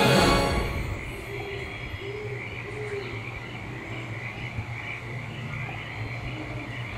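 Orchestral ride music ends about half a second in. After that, soft continuous chirping with a few short warbling calls plays over a low steady hum, nature ambience from the ride's show soundtrack.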